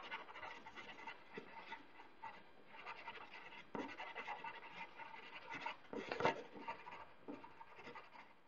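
Felt-tip marker scratching across paper in quick, irregular strokes as letters are written and a shape is coloured in, with a few louder strokes around the middle.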